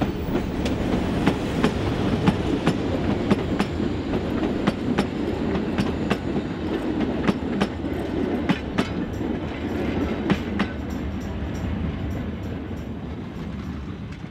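Metre-gauge heritage diesel train passing close by, its wheels clicking over the rail joints in repeated clatters as the coaches roll past. The sound fades as the train moves away near the end.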